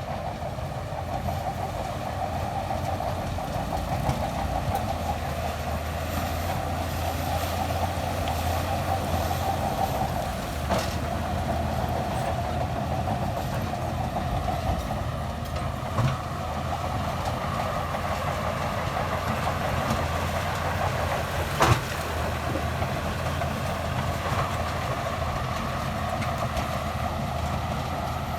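Shantui DH17C2 crawler bulldozer's diesel engine working steadily under load, with clattering from its tracks. Three sharp knocks stand out, the loudest about two-thirds of the way through, as of steel striking stone.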